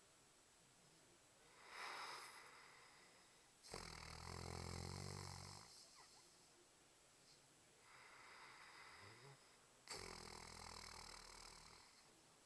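A sleeping pet snoring. Two loud snores with a low buzz come about six seconds apart, each lasting about two seconds and starting abruptly, with a softer, breathy breath before each.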